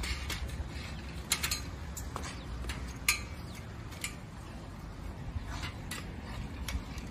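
Old roadster bicycle clicking and rattling as it is wheeled and ridden over paving stones: irregular sharp ticks from its chain and mechanism, over a low rumble.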